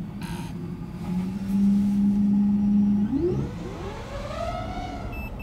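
DJI FPV drone's motors spinning on the car roof, heard from inside the car: a steady hum, then a whine rising in pitch from about three seconds in as the throttle comes up. A short high beep near the end.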